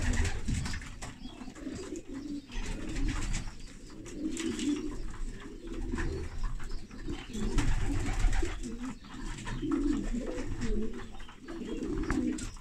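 Homing pigeons cooing: low, throaty calls repeated every second or so, with faint rustling and clicks among them.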